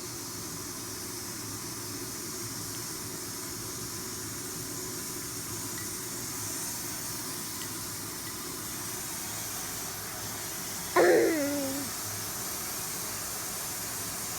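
Steady background hiss, with one short call about eleven seconds in whose pitch falls away quickly.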